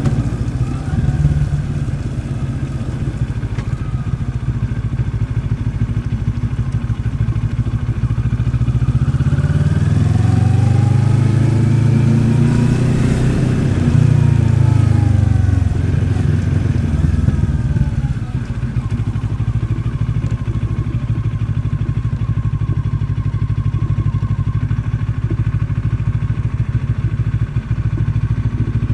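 Moto Morini X-Cape 650's parallel-twin engine running at low revs, rising in pitch about eight seconds in, peaking a few seconds later and easing back down, then settling into a steady low running for the rest.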